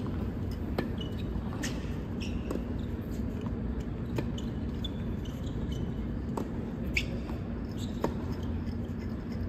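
Scattered sharp knocks at irregular intervals, about a dozen in all, with a few short high squeaks in between, over a steady background noise with a faint hum.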